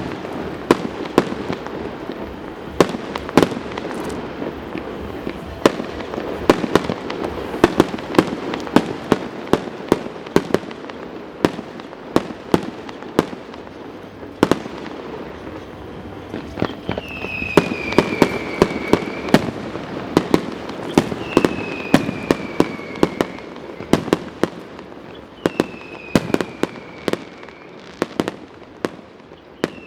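Fireworks display: a rapid, uneven string of sharp bangs and pops over a continuous rumble. From about halfway, a falling whistle of a couple of seconds recurs roughly every four seconds among the bangs.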